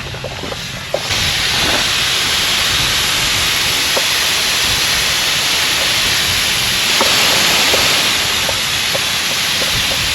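Air hissing out of four tires through a MORRflate multi-tire deflation hose kit while airing down for off-road driving, a loud steady rush that jumps louder about a second in.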